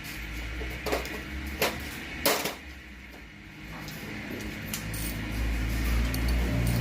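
Three sharp knocks, like metal tools struck or set down, then a low engine rumble that grows steadily louder through the second half.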